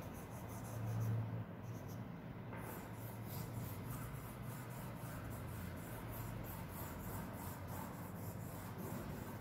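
Oil pastel scraping and rubbing across paper in quick, repeated back-and-forth strokes, colouring in a drawing; faint and steady.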